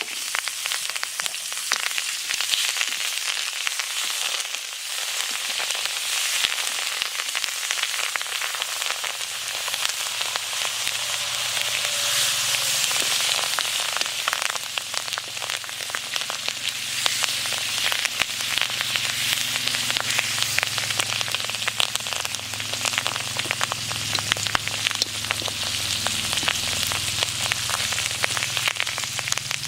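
Battered loach and betel leaves deep-frying in hot oil: a steady sizzle with constant small spattering pops.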